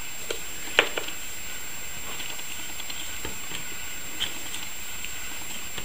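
A few light clicks and taps as a plastic 120 mm computer fan is handled and turned over, the clearest about a second in, over a steady background hiss.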